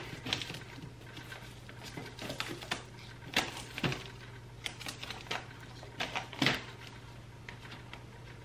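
Irregular light clicks and taps of plastic storage crates and packaged paper items being handled and set in place on a metal wire shelf, over a faint steady low hum.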